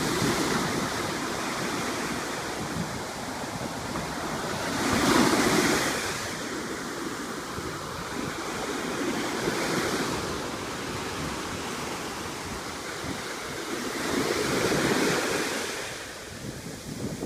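Gentle ocean waves breaking on a beach, each wave swelling and washing back about every five seconds, the loudest about five seconds in.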